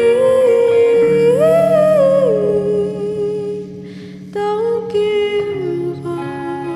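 A woman's voice singing a wordless held melody that slides up and back down, over sustained electric guitar chords. There is a short breath about four seconds in, then the voice comes back.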